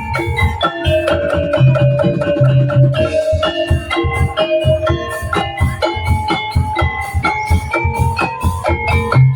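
Tongtek percussion ensemble playing: a fast, dense beat of drums and struck bamboo under a pitched, mallet-struck melody.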